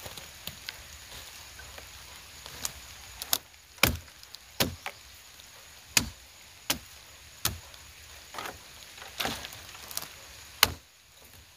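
Dry branches being chopped and snapped while brush is cleared: about a dozen sharp cracks at irregular intervals, roughly one a second, beginning a couple of seconds in.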